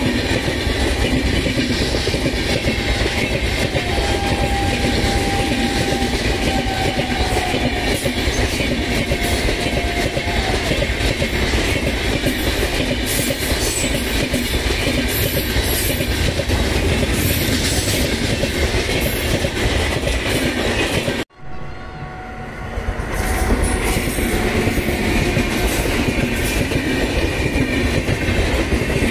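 Indian Railways express passenger coaches rushing past close by at speed: a steady loud rumble and rush of steel wheels on rail, with fast clickety-clack over the rail joints. About 21 seconds in, the sound cuts out abruptly. It comes back quieter and swells again to the same rush of a passing train.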